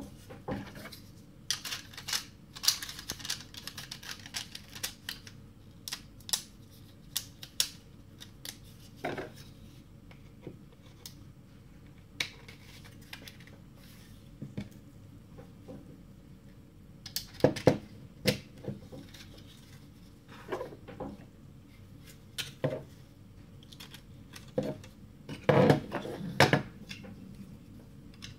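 Hard 3D-printed plastic parts of a toy ping pong ball gun being handled and fitted together: irregular clicks, knocks and rattles, with bursts of clatter about two seconds in, around seventeen seconds and near the end.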